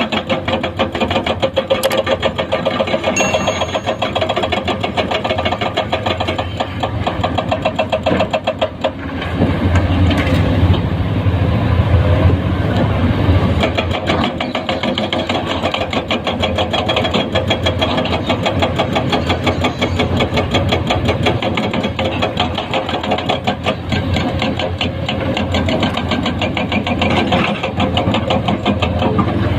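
Komatsu PC210-10 excavator's diesel engine running while working, with a fast, even pulse. About nine seconds in it grows louder and deeper.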